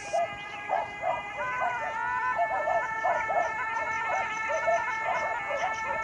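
Background music: a sustained pitched tone with many overtones holds long notes that step up and down in pitch. Short chirping notes repeat two or three times a second beneath it.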